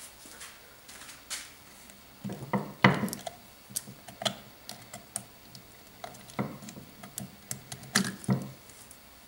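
Plastic display module of an industrial temperature transmitter being handled and pulled off its housing: scattered clicks and knocks, the loudest about three seconds in and again about eight seconds in.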